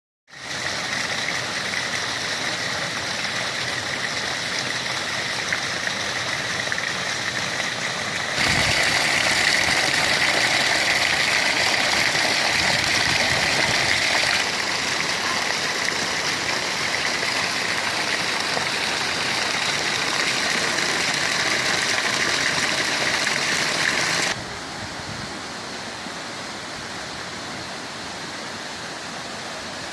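Natural spring or stream water rushing and splashing in a steady hiss. It gets louder suddenly about 8 seconds in, eases a little a few seconds later, and drops quieter for the last five seconds or so.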